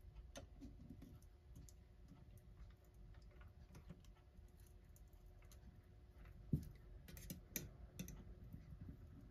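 Faint clicks and light scrapes of a small screwdriver prying at a clock's retaining ring and working around it; the ring is stuck and does not come free. The loudest click comes about six and a half seconds in, with a few more just after.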